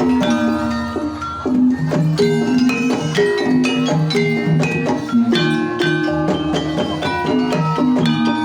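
Banyumasan gamelan ensemble playing a gending: mallet-struck keyed instruments repeat short notes in a steady interlocking pattern, punctuated by drum strokes.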